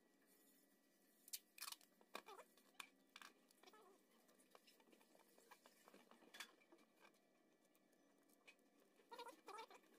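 Faint crackling and clicking of corrugated cardboard being pressed and creased by hand, with a utility knife scoring the cardboard near the end.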